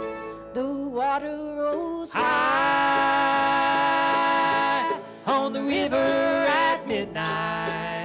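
Live acoustic Americana band playing an instrumental passage: a fiddle leads and holds one long note for about three seconds, over guitar, mandolin and double bass.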